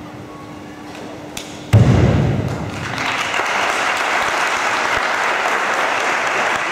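A heavy thud about two seconds in as a karateka lands on the mat from the spinning jump in the kata Unsu, followed by the crowd breaking into steady applause and cheering.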